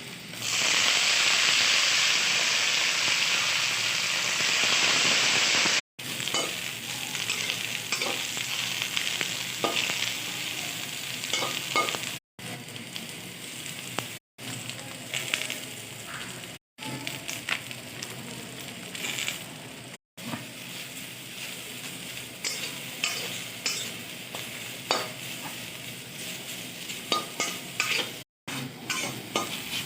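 Brinjal (eggplant) frying in hot oil in a pan. The sizzle comes up loud about half a second in and holds for about five seconds, then settles lower under frequent clicks and scrapes of a spatula stirring the pan, with a few abrupt breaks.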